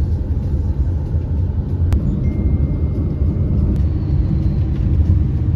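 Steady low rumble of a car on the move, engine and road noise, with a couple of faint clicks.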